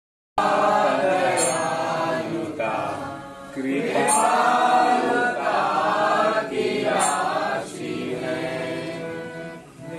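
A group of voices chanting together in devotional call-style singing, in long held and repeated phrases, with a short break about three and a half seconds in.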